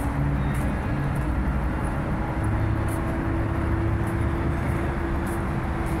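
City street traffic noise: a steady rumble of passing cars with a steady engine hum underneath.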